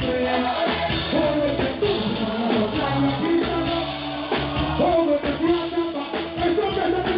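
Live reggae band music with singing, dense and steady throughout.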